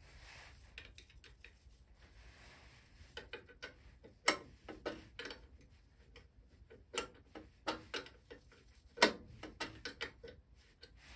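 Irregular clicks and taps as a hand twists and releases the newly fitted toothed drive belt on the lathe's pulleys, checking that it is tensioned so it will only just twist. The clicks begin a few seconds in and come in uneven clusters, two of them sharper than the rest.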